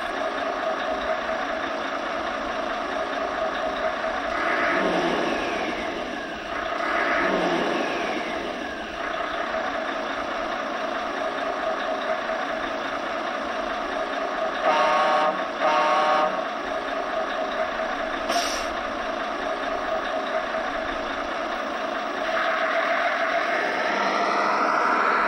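Simulated truck engine sound from the Das Mikro TBS Mini sound module in an RC Ural 4320 model, played through the model's small speakers: a steady running note, with the revs sweeping up and down twice early on and rising again near the end. Midway, two short pitched blasts about a second apart.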